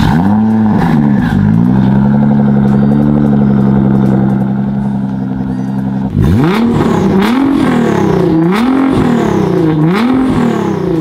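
Nissan GT-R's twin-turbo V6 free-revving through its exhaust while parked: a quick blip, then a rev held steady for about four seconds. It drops back about six seconds in and is blipped three more times, rising and falling.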